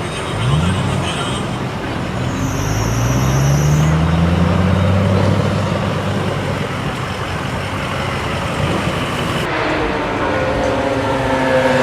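Car engines: a quick rev blip about half a second in, then a car accelerating with an engine note that climbs over a couple of seconds, a steadier run, and another engine building revs near the end.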